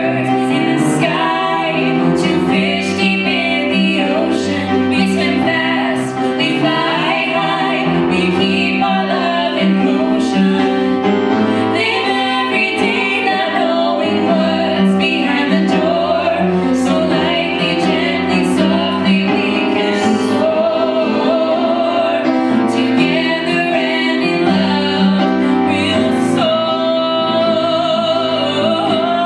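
A song performed live: a woman's voice singing over instrumental accompaniment.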